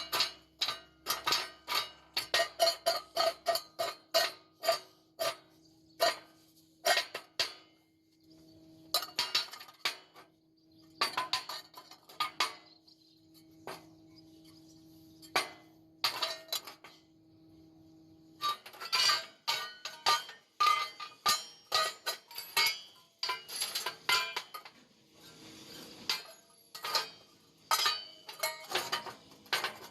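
Steel being struck again and again with a hammer: sharp ringing metallic blows in irregular runs of several a second, with short pauses. A faint steady hum sits under the first two-thirds and stops about 18 seconds in.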